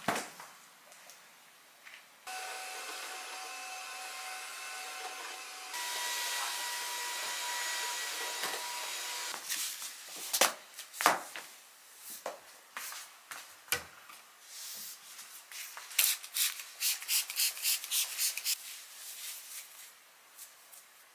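A small appliance motor runs steadily for about seven seconds, its tone changing partway through. It is followed by scattered knocks and slipper footsteps on a wooden floor, and a quick run of clicks near the end.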